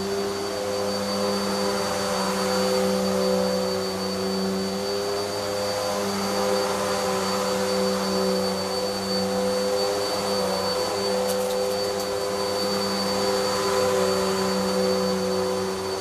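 Vax Zoom Pet U87-ZM-P upright vacuum cleaner with an 1800 W motor, running steadily while being pushed back and forth over carpet: a steady motor hum with a thin high whine, wavering slightly a few times as the machine is moved.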